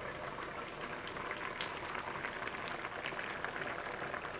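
A pot of kimchi stew at a rolling boil, with many small bubbles popping in a steady crackle.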